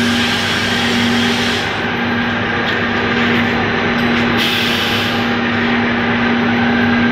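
Wire-gluing machine for staple production running: a steady mechanical hum with a constant low tone under a dense, even whirring noise.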